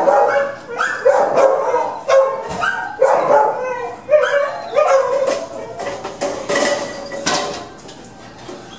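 Several excited shelter dogs barking over one another in their kennels, a new bark about every second; the dogs are worked up by a walker arriving at the kennels.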